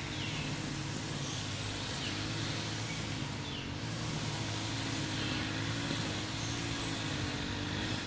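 Steady low hum of a running engine or motor, its pitch wavering slightly, with a high hiss over it. Short, high, falling chirps come every second or so. The hum and hiss drop away suddenly at the very end.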